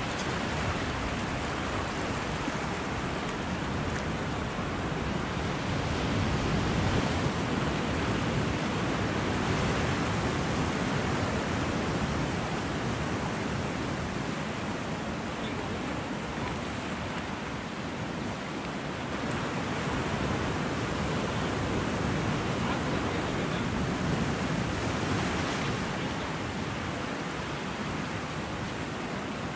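Ocean surf breaking and washing over a rocky shore, a steady rush that swells louder twice.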